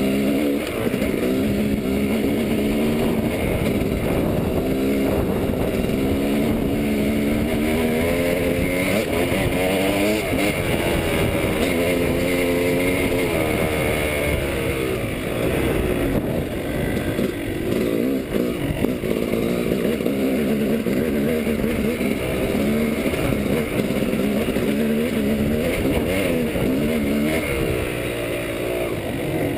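Yamaha dirt bike engine revving up and down over and over as the rider works the throttle, its pitch rising and falling repeatedly.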